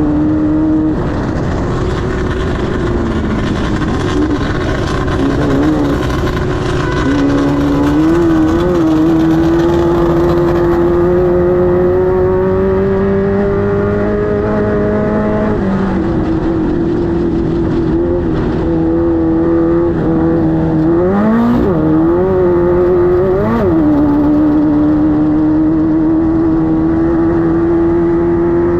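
Air-cooled 1600 cc VW flat-four of a Class 5-1600 Baja Bug race car running hard at high revs. Its pitch climbs slowly and drops sharply a few times, as with throttle lifts or gear changes.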